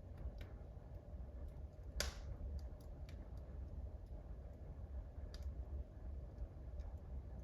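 Wood fire in a wood-burning stove crackling, with scattered small clicks and one louder pop about two seconds in, over a steady low rumble.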